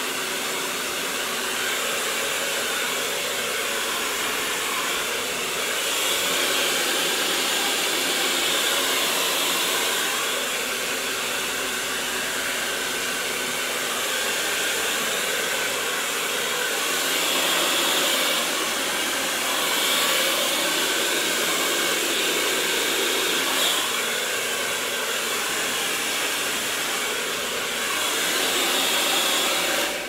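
Black Eagle hair dryer blowing steadily, loud, its rushing air swelling slightly and easing back a few times as it is moved over the hair.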